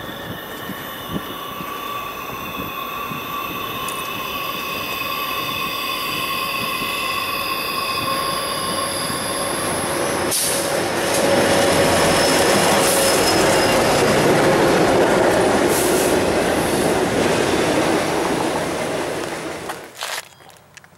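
CSX freight train led by an EMD SD70MAC diesel locomotive with a GE ES44DC trailing, coming around a curve with its wheels squealing in several steady high tones. It grows louder as the locomotives pass, with engine and rail noise, then cuts off sharply near the end.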